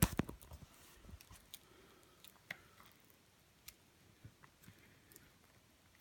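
Plastic wrap on a Blu-ray case being picked and pulled at by hand: a sharp crackle at the start, then scattered faint clicks and crinkles.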